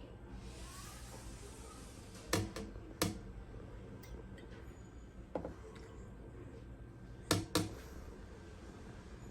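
Six light, sharp knocks of hard objects, mostly in quick pairs, over a faint steady hum.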